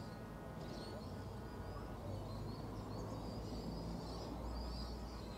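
Birds chirping over a steady low outdoor rumble.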